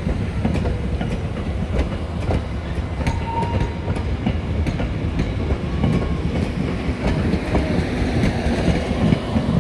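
Passenger train coaches rolling past close by: a steady rumble of steel wheels on the rails, with irregular clicks as the wheels cross rail joints.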